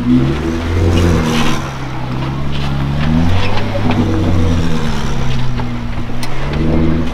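Four-door Jeep Wrangler engine revving up and easing off repeatedly as it crawls over rocks. Scattered clicks and crunches from the tyres on the rock.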